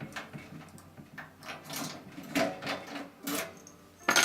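A toolbox being opened and handled: a series of clicks, knocks and scrapes from its lid and latches, with a sharp knock near the end.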